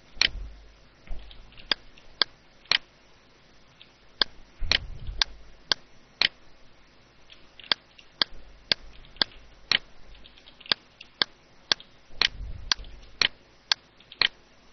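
Computer mouse buttons clicking: about two dozen sharp single clicks at irregular intervals, at times about two a second, with a few soft low thuds among them.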